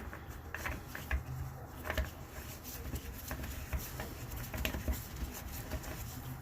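Scattered light clicks and taps of hand tools and metal parts being handled at a workbench, over a steady low hum.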